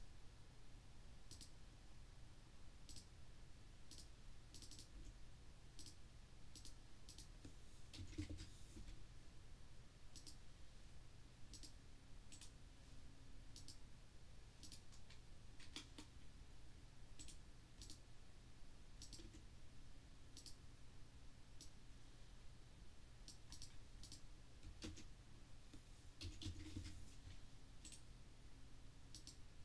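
Quiet, irregular clicking of a computer mouse, dozens of separate clicks spaced unevenly, over a faint steady low hum.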